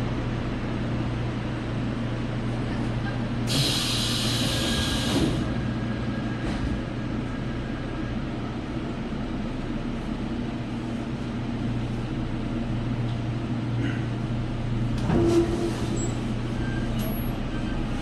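Subway train car standing at a station platform: a steady low hum from the car, a burst of hissing air lasting about two seconds a few seconds in, and a short knock about 15 seconds in.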